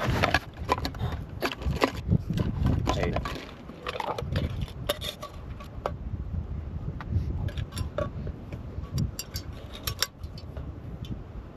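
Small metal cook-kit items clinking and knocking together, with rustling, as a camping stove set and mug are taken out of a backpack. A steady low rumble of wind on the microphone lies under it.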